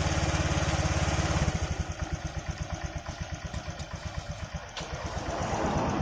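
Honda Vario 125's liquid-cooled single-cylinder four-stroke engine idling as it warms up, with the radiator cap off after a coolant refill. It runs as an even, rapid pulse that drops in level and slows slightly about a second and a half in.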